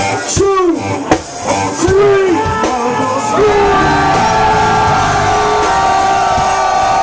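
Live hip-hop band playing loudly, with fans close to the microphone yelling in the first few seconds; from about three seconds in, a long held note carries on through the music.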